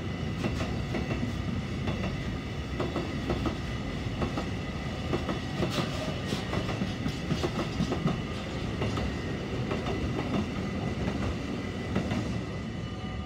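Freight train's loaded container flat wagons rolling past, wheels clicking over the rail joints in a rapid, uneven clatter with a thin steady high tone over it. The last wagon goes by about twelve seconds in, and the rumble begins to fade.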